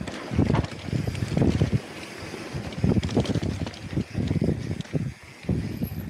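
Wind buffeting an action camera's microphone in irregular gusts as a mountain bike rolls quickly down a dirt trail, with tyre noise and light clicks and rattles from the bike.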